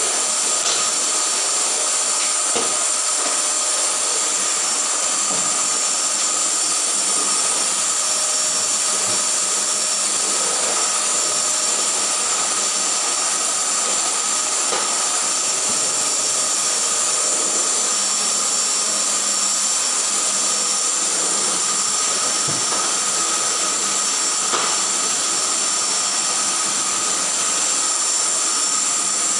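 Vacuum cleaner running steadily: a constant high hiss with an even whine that holds one pitch throughout.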